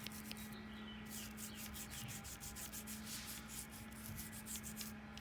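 Soft-bristled bottle brush scrubbing grime from inside a Victorinox Swiss Army knife's frame, in quick repeated scratchy strokes.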